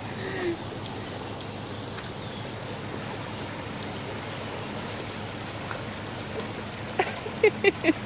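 Shallow river running over stones at a ford: a steady trickling wash of water.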